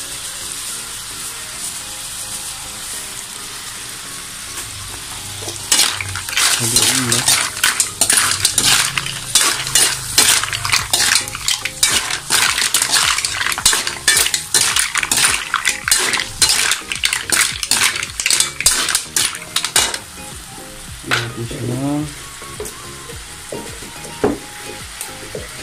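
Metal ladle stirring mussels in a metal wok, the shells clattering and the ladle scraping and knocking against the pan in a dense run of clicks. The run starts about six seconds in and stops after some fourteen seconds. A steady sizzle of the buttery sauce is heard underneath.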